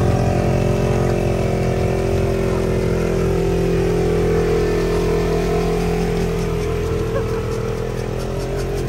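An engine running at a steady speed. Its pitch eases down slightly at the start, then holds.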